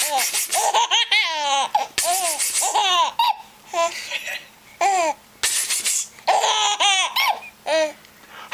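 Baby giggling in a run of high-pitched bursts of laughter, with short breaks about four seconds in and near the end.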